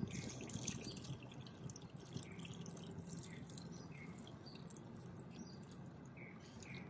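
Liquid poured in a steady stream from a metal pot into a large stainless-steel stockpot of broth, splashing. The sound is loudest at first and eases off as the stream thins.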